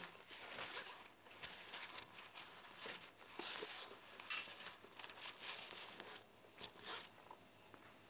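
Quiet, scattered rustles, crackles and small taps of people eating at a table: chewing, and a paper napkin being picked up and handled.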